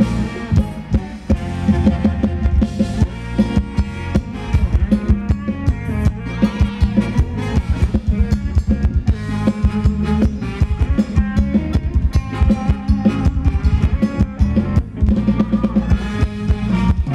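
Live band playing upbeat Thai ramwong dance music, with a steady drum-kit beat of bass drum and snare under the melody.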